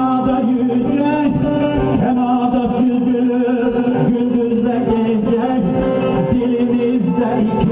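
Bağlama (long-necked Turkish saz) playing a folk melody: plucked notes over steady ringing drone tones.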